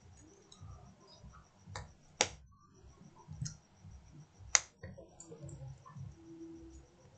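Sharp clicks and taps of small hard phone parts and tools being handled during reassembly, two louder clicks about two and four and a half seconds in, with fainter ticks between.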